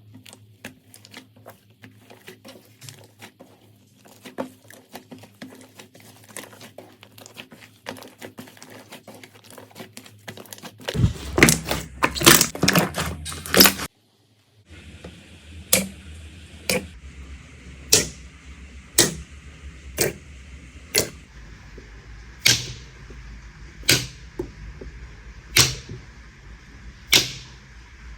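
Slime being worked by hand: a run of fine crackling clicks and pops, turning louder and denser about eleven seconds in. After a short break, sharp single pops come about once a second.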